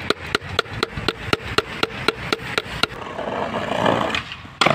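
A metal skateboard truck used as a hammer, beating a new kingpin into another truck's baseplate: about a dozen ringing metal-on-metal strikes, about four a second. Then comes a second or so of scraping and one loud knock near the end. The kingpin will not seat because parts are in the way.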